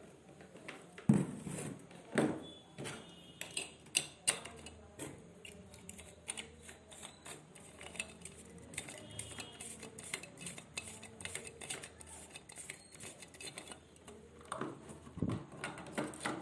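White plastic batten lamp holder being handled and fitted onto a black PVC mounting box: a run of small plastic clicks, knocks and light scrapes, with sharper knocks about one, two and four seconds in.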